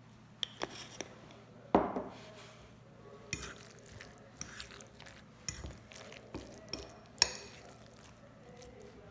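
Metal fork stirring a mashed cauliflower and potato mixture in a glass bowl, with irregular clinks and scrapes of the fork against the glass, the loudest about two seconds in and about seven seconds in.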